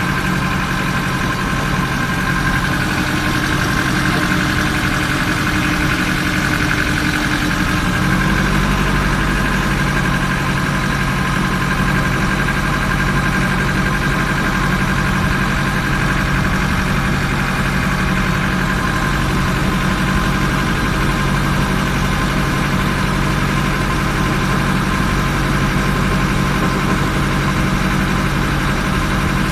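A ferry boat's engine running steadily, its note shifting slightly about eight seconds in.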